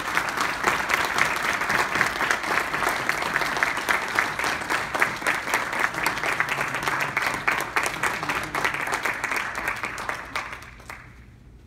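Audience applauding steadily, many hands clapping together, then dying away near the end.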